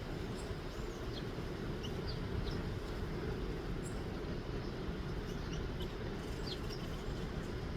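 Small wild birds giving short, high chirps, scattered irregularly over a steady low background rumble.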